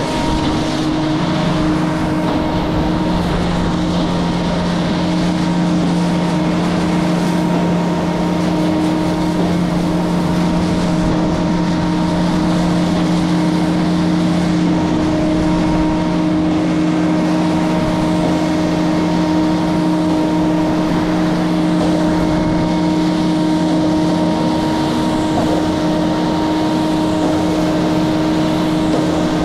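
Water hose spraying hard onto a concrete mixer truck's chute and rear end, rinsing off concrete and splashing on the ground. Under it, the truck's diesel engine runs with a steady hum.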